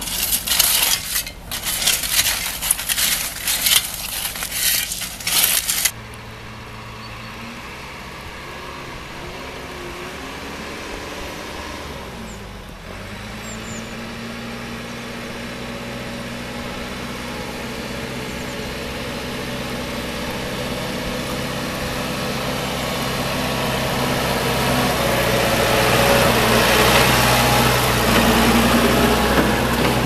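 Shovels scraping and crunching into crushed stone for about the first six seconds, stopping abruptly. Then a CAT backhoe loader's diesel engine running as the machine drives over a snowy track, growing steadily louder as it comes closer and loudest near the end.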